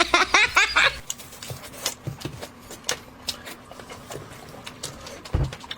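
Close-up eating sounds: chewing and mouth smacks mixed with light clicks of utensils and dishes, coming irregularly several times a second, with one dull thump near the end.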